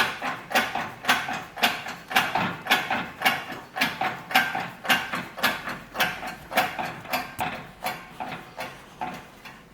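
Side carrier bearing being pressed onto a Cusco 1.5-way limited-slip differential carrier: a steady series of metallic clicks, about two a second, each with a light ring, growing fainter toward the end.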